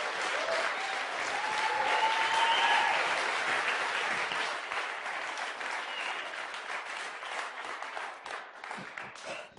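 Audience applauding. The clapping swells to its loudest about two to three seconds in, then slowly dies away.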